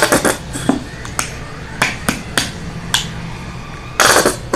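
Thin clear plastic bottle crackling as it is squeezed by hand to force gel out: a run of sharp clicks, several a second apart, with a denser burst of crackling about four seconds in.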